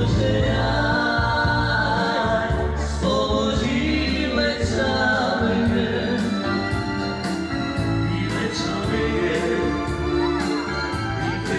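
Live band playing dance music: a man singing over electronic keyboards, with a steady beat.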